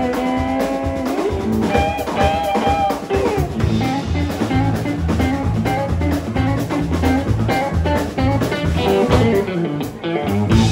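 Live band of electric guitar, electric bass and drum kit playing an instrumental passage over a steady, repeating bass line. It closes on a loud final hit near the end, the end of the song.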